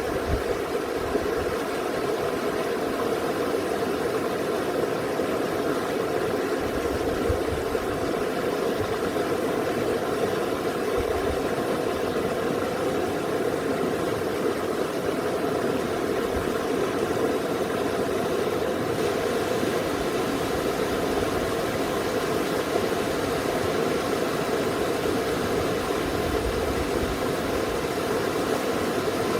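Mountain river stream rushing steadily, a constant unbroken wash of water noise.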